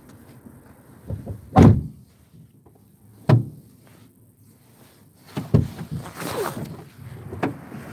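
A few dull thumps and knocks on the microphone from the camera phone being handled and set down, four in all, the loudest about a second and a half in.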